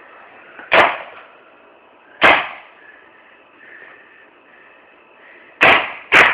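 Paintball marker firing four single shots, each a sharp crack: two about a second and a half apart, then after a pause of about three seconds two more in quick succession near the end.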